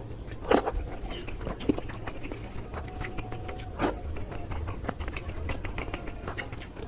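Close-up mouth sounds of someone eating syrup-soaked rasgulla: wet chewing and smacking with many small clicks. Two louder mouth noises come about half a second in and near four seconds in, over a steady low hum.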